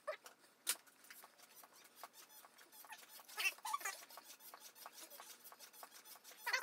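Cheap stair stepper exercise machine squeaking in use, a few pitch-bending squeals, the loudest about three and a half seconds in and near the end. Small clicks of eating run throughout.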